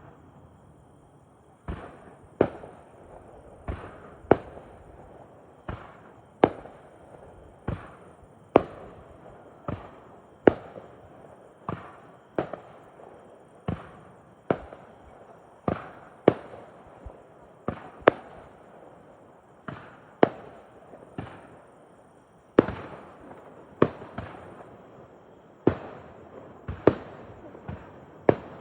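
Aerial fireworks shells bursting in quick succession at a display: after a brief lull, sharp bangs come about once a second, sometimes two close together, each followed by a short rumbling echo.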